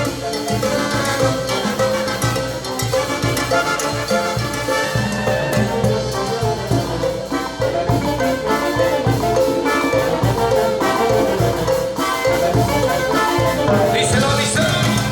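Brass band playing a Peruvian cumbia: an instrumental stretch with no singing, over a steady dance beat.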